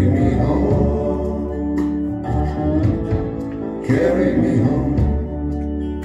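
Blues song played back through Quad II valve power amplifiers with KT66 output tubes and loudspeakers: an instrumental stretch of sustained organ chords over bass and drums, with a wavering lead line near the start and again about four seconds in.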